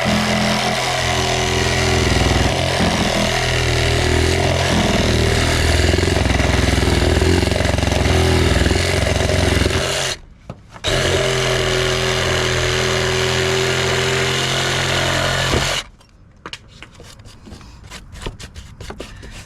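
Reciprocating saw (SawZall) running as its blade tip is worked into wood for a plunge cut. It stops for a moment about ten seconds in, runs again, then shuts off about sixteen seconds in, followed by a few light knocks.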